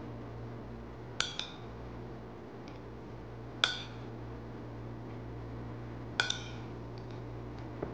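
Metal fork clinking against a ceramic plate of stir-fry: three short ringing clinks roughly two and a half seconds apart, two of them doubled, with a few fainter ticks near the end, over a steady low hum.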